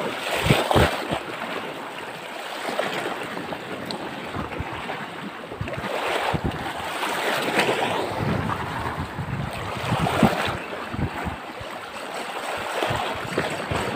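Sea waves washing over rocks in uneven surges, with wind buffeting the microphone.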